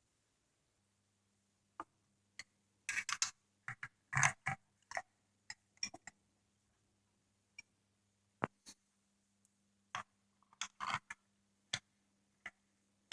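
Scattered clicks and light knocks at irregular intervals, bunched in two short clusters, as the parts of a coaster-brake rear hub and the tools working on it are handled during reassembly and cone adjustment.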